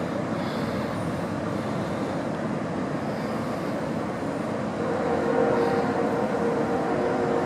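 Strong wind rushing steadily across the microphone. A faint steady hum joins in about five seconds in.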